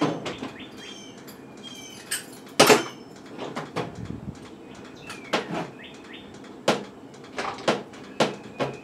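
Irregular knocks and clunks of things being picked up and set down in a workshop, the loudest about a third of the way in and several more close together near the end, with short high chirps and quick falling squeaks in between.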